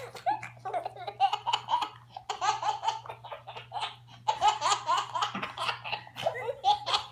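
Toddler laughing hard in repeated bouts of short giggles, with brief pauses between the bouts.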